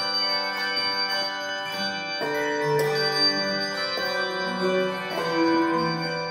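Handbell choir playing: several bells are struck together and left ringing, and new chords come in every second or so over the ones still sounding.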